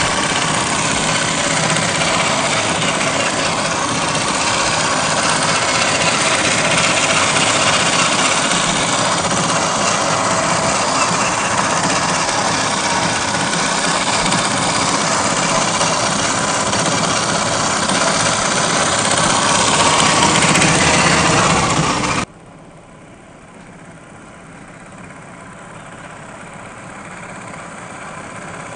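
Gmade GS02F Buffalo RC scale truck driving close by, a loud steady engine-like running sound. It drops off suddenly about 22 seconds in, then grows slowly louder as the truck comes closer.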